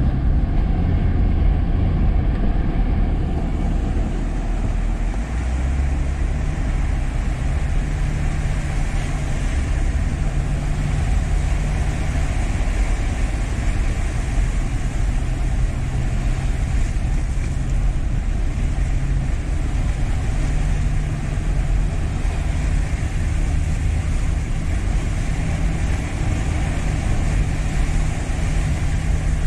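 Car engine running and tyres rushing through floodwater, heard from inside the cabin. The engine's low hum steps up and down in pitch a few times over a steady wash of water noise.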